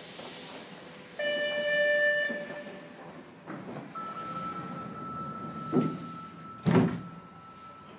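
Sapporo Municipal Subway Tozai Line 8000 series train heard from inside the car at a station stop. A short pitched chime sounds about a second in. A steady thin whine starts at about four seconds, and two heavy thumps come near the end.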